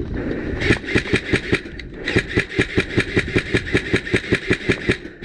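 Airsoft electric rifle firing on full auto, a fast, even clatter of shots in two long strings with a short break about two seconds in.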